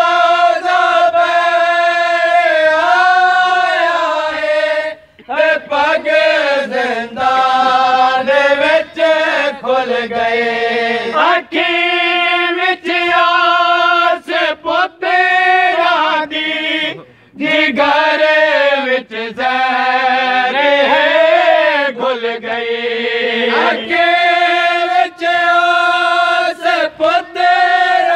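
Men's voices chanting a nauha, a Shia mourning lament, together in long held, wavering lines, with brief breaks between phrases.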